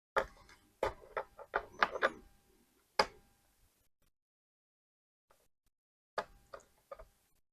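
Sharp clicks and light knocks of small plastic and metal laptop parts being handled while a RAM module is swapped in a Lenovo ThinkPad T450: a quick run of about seven clicks at the start, one more about three seconds in, and a few more near the end.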